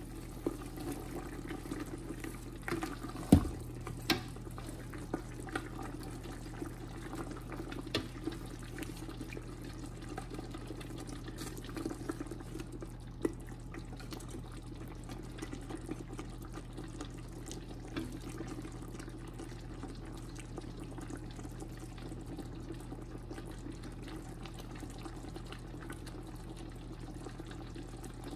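Turkey stock in a stainless-steel stockpot, liquid swishing and burbling steadily as a wooden spoon stirs it. The spoon knocks against the pot now and then, loudest about three seconds in, and the knocks stop in the second half, over a steady low hum.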